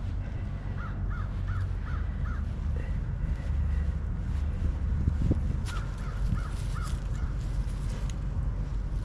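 A bird calling in two runs of short repeated calls, one run about a second in and another a little past the middle, over a steady low rumble.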